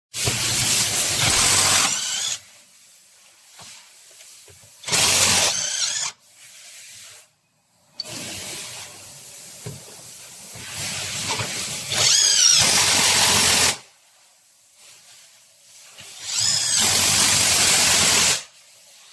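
Cordless brushless impact wrench run in several separate bursts of one to three seconds, with short pauses between them; in some bursts a high whine sweeps up and down.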